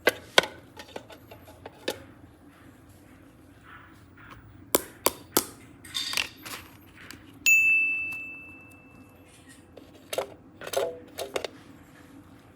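Scattered light clicks and taps of small hard objects, with one bright high ding about seven and a half seconds in that rings out and fades over about a second and a half.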